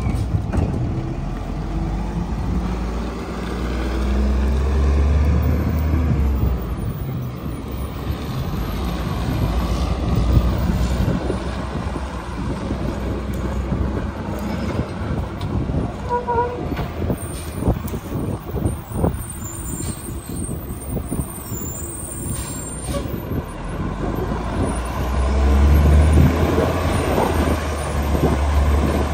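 Mack MR rear-loader garbage truck's diesel engine running as the truck pulls away and creeps along the street, with air-brake hisses and clanks in between. The engine is loudest a few seconds in, as it pulls off, and again near the end, when the truck comes close.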